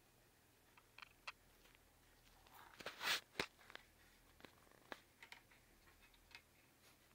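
A cat rummaging under a shoe rack: faint, scattered rustles and taps, with one louder rustle about three seconds in that ends in a sharp tap.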